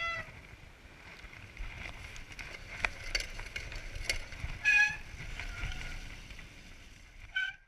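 Mountain bike rolling fast over a dirt trail: tyre noise with a low rumble, and the bike rattling with scattered sharp clicks and knocks over bumps. A few brief high squeals cut in, the loudest a little past the middle.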